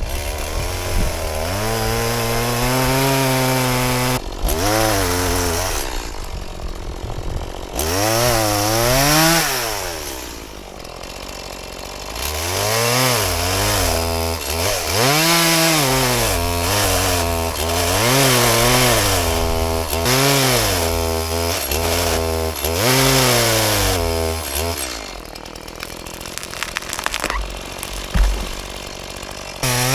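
Stihl MS180 two-stroke chainsaw cutting wood. The engine revs up and drops back again and again as the chain goes into and out of the cut.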